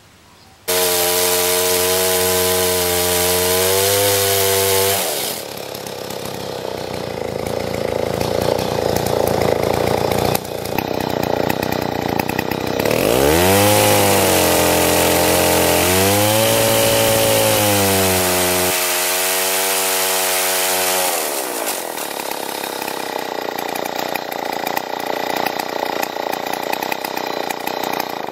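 Stihl 090 two-stroke chainsaw with a 5-foot bar running at full throttle in a chainsaw mill, cutting lengthwise through a log. It starts abruptly about a second in, its engine pitch rises and sags with the load, swooping up near the middle, and it cuts off suddenly at the end.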